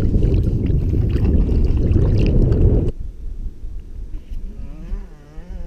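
Water sloshing and splashing around the camera held at the waterline as a small fish is let go by hand in shallow water, a loud low rumble with small splashy clicks that cuts off abruptly about three seconds in. After that it is much quieter, and a wavering pitched sound comes in about four seconds in.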